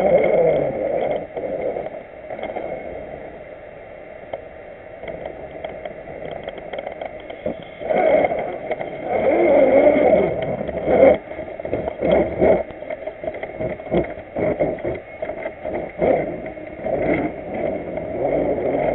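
Electric drive motor and gearbox of a 1/6-scale RC Willys Jeep whining as it crawls over gravel and rocks. The whine is quieter for a few seconds early on, then louder and surging with the throttle from about eight seconds in, with repeated short knocks as the wheels and chassis bump over stones.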